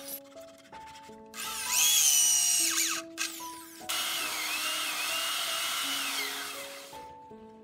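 Cordless drill driving screws into a wooden cabinet door to fix concealed hinges, in two runs: a short one about a second and a half in, and a longer one of about three seconds starting about four seconds in. Background music plays underneath.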